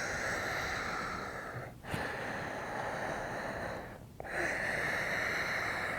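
Slow, audible breaths in and out through a narrowed throat, each long and hissing, held during a yoga pose. Breaths change over at about two seconds and again at about four seconds.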